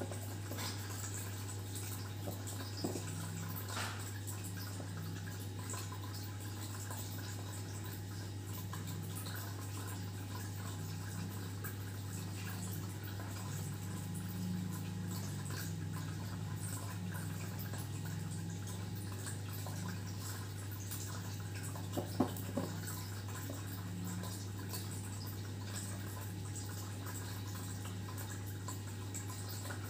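Steady low hum under a faint even hiss, with a few light clicks, the loudest a quick pair about three quarters of the way through.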